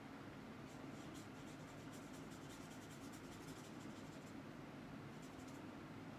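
Faint scratchy strokes of a watercolour paintbrush on paper, over a low steady hum.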